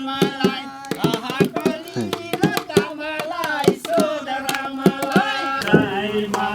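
People singing a Nepali folk song, with sharp percussive strikes keeping time.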